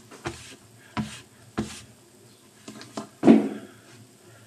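A few short knocks and clunks of objects being handled and set down, the loudest a heavier thud a little after three seconds in.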